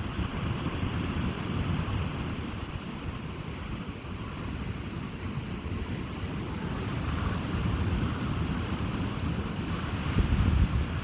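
Ocean waves breaking and washing up a beach, with wind buffeting the microphone in a low rumble; the wash swells a couple of times, and a stronger gust comes near the end.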